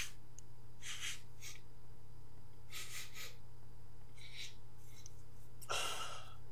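A man sniffing snuff sharply up his nose from his hand: several short sniffs, the strongest about one and three seconds in, then a longer, fuller sniff near the end.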